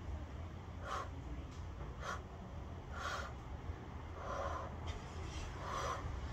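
A child blowing short puffs of breath through a plastic bubble wand, five in a row about a second apart, over a steady low rumble.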